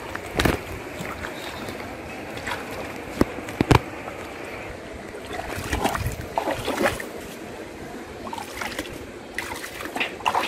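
Shallow water sloshing and splashing around a man's legs as he wades and hauls in a cast net line, with scattered sharp splashes over a steady noisy background.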